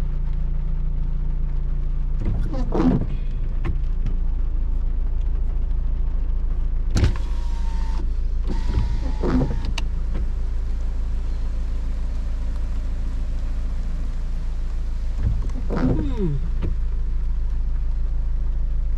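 Car engine running at low speed, a steady low hum heard inside the cabin, with a few brief squeaks and knocks.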